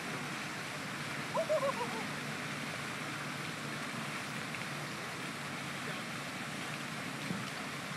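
Steady rushing outdoor background noise, with a brief warbling, pitched sound about a second and a half in.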